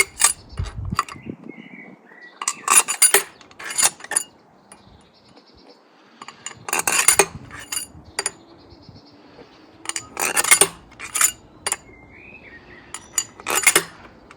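Steel engine studs and small metal parts clinking and knocking together in irregular clusters as they are handled and fitted to a 13B rotary engine's housings.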